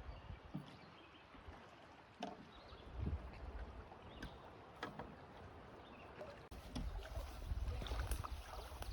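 Scattered light knocks and clicks of gear and movement in a small boat on the water. Low wind buffeting on the microphone sets in about two-thirds of the way through.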